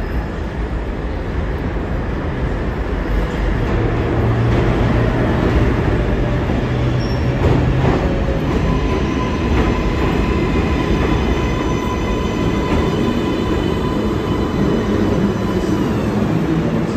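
An R188 subway train pulling into an elevated station: a steady rumble of steel wheels on the rails that builds as it approaches. From about halfway a high-pitched whine holds as the train slows to a stop alongside the platform.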